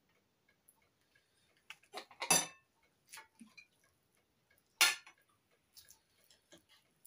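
Knife and fork clinking and scraping against a china plate while a roast chicken is carved: a few short, sharp clicks with quiet between, the loudest about two and a half seconds and five seconds in.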